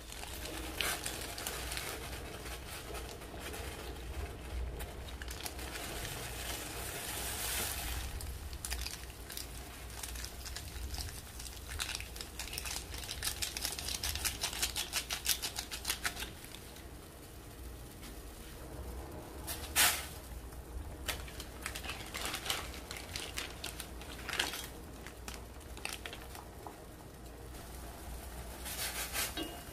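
Water and ramen broth boiling in a stainless steel pot on a stove: a steady bubbling hiss with crackling and scattered clicks, thickest in the middle, and one sharp click about twenty seconds in.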